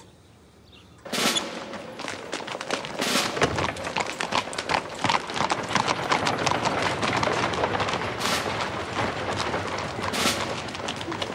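Horse hooves clip-clopping and carriage wheels rattling on cobblestones as a horse-drawn carriage passes, mixed with the footsteps of a group of boys running along the street. It starts suddenly about a second in, a dense stream of clatter with a few sharper cracks standing out.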